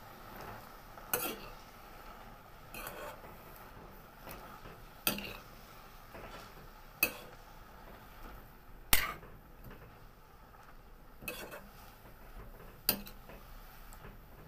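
Metal spoon stirring in a steel kadai, clinking against the pan about every two seconds, seven times in all. The loudest knock comes about nine seconds in.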